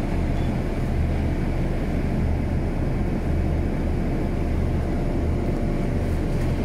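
Steady low engine drone inside a bus cabin, the bus standing with its engine idling.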